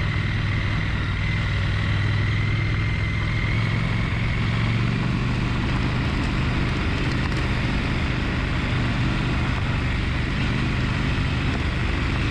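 Triumph Scrambler 1200 XE's parallel-twin engine idling steadily, with a rattle that the owner suspects comes from the chain or the side stand.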